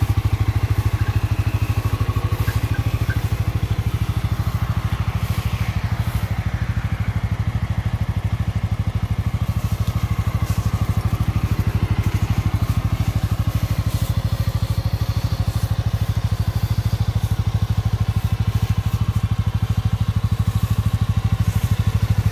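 CFMOTO 625 ATV's single-cylinder four-stroke engine idling steadily, an even low pulsing that holds the same pitch and level throughout.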